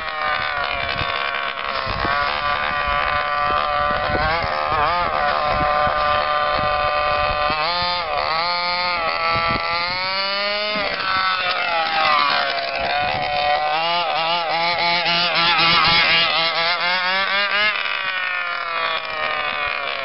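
HPI Baja 5B SS large-scale RC buggy's 26cc two-stroke petrol engine revving as it drives, its high-pitched buzz rising and falling repeatedly with the throttle. It is highest and loudest about three-quarters of the way through.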